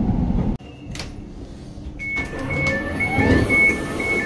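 Train rumble cuts off abruptly less than a second in. About two seconds in, Elizabeth line door-closing warning beeps start, a rapid two-tone pattern alternating between a higher and a lower pitch.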